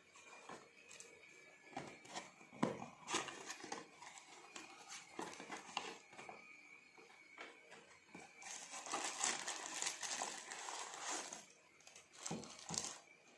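Packaging being handled: crinkling with scattered clicks and knocks, densest and loudest about nine to eleven seconds in, over a faint steady high whine.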